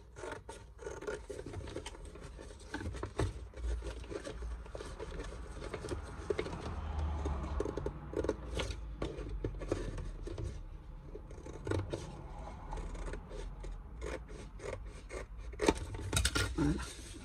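Scissors snipping through thin cereal-box cardboard in a run of irregularly spaced cuts.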